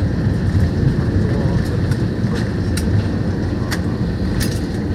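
Cabin noise inside an AirAsia Airbus A320-family jet rolling along the runway just after landing: a steady low rumble of engines and wheels, with a few faint rattles.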